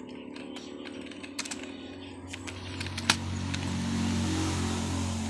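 Scattered keystrokes on a computer keyboard. About halfway through, a low rushing noise swells up and begins to fade, louder than the typing.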